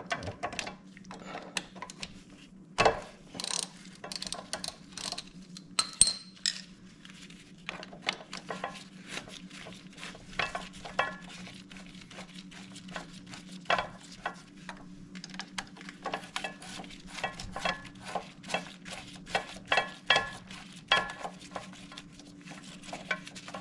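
Light metallic clicks and clinks of a 5 mm hex key turning the brake-pad retaining screws out of a Honda GL1500 Gold Wing's front brake caliper, coming in irregular runs, over a steady low hum.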